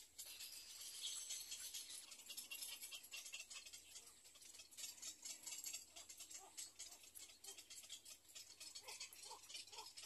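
Faint dry crackling and rustling, with a few short faint chirps about halfway through and again near the end.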